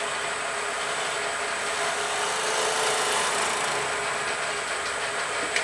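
A wood lathe spinning a kohlrabi while a bowl gouge takes a peeling cut through its hard outer skin: a steady scraping over the lathe's faint motor hum, cutting off abruptly at the very end.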